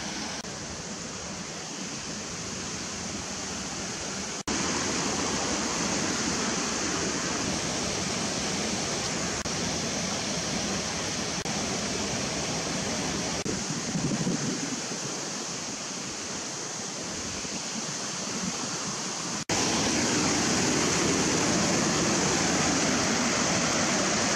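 Steady rush of fast-flowing water, in three stretches cut together; it jumps louder about four seconds in and again near the end.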